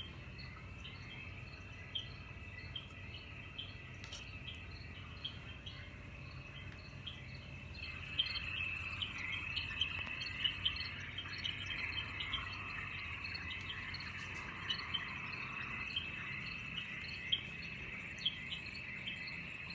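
Nature ambience: a steady insect-like trill with small regular ticks, joined by busier bird-like chirping from about eight seconds in.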